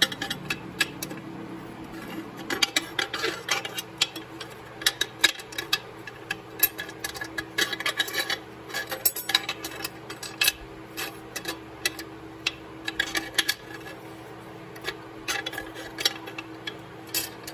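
Steel reverse-clutch plate turned by hand inside an aluminum Powerglide transmission case, clinking and scraping against the case in many small irregular clicks as it is spun round to find where its notch fits. A steady low hum runs underneath.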